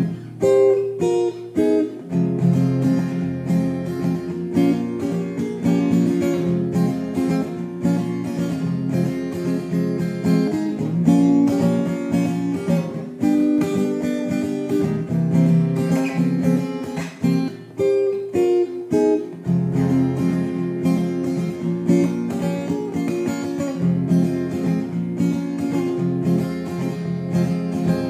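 Cutaway acoustic guitar strummed and picked in an instrumental passage, with no singing.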